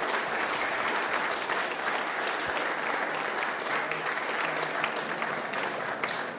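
A lecture-hall audience applauding, a dense, steady clatter of many hands clapping.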